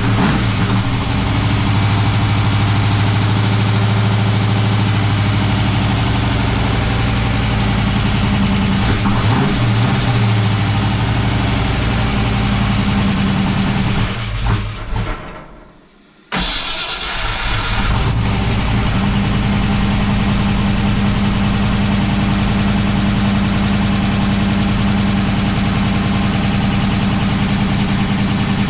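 Car engine with freshly fitted link-bar lifters and longer pushrods running at a steady fast idle after a cold start, run to hear whether the lifter tick is gone. About halfway through the sound fades and cuts out for about a second, then the engine running comes back suddenly and holds steady.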